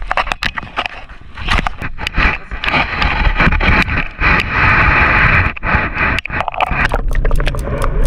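Handling noise on a GoPro action camera held low against concrete: many knocks, clicks and scraping, with a rushing noise through the middle few seconds.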